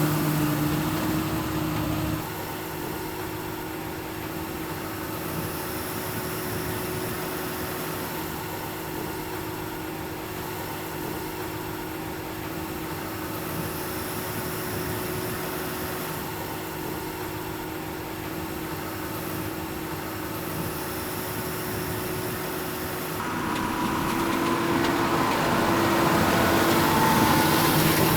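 Tractor engine running steadily while a Vermeer 604S Premium round baler works in the field, a steady machine drone that is louder at the start and again over the last five seconds.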